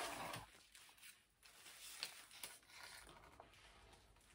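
Faint handling of a cardboard box being opened: light rustling and scraping, with a few small clicks, the clearest about two seconds in.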